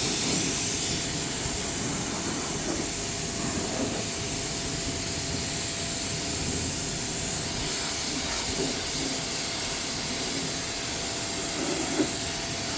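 Pressure washer jet spraying water onto carpet: a steady, unbroken hiss with a faint constant tone underneath.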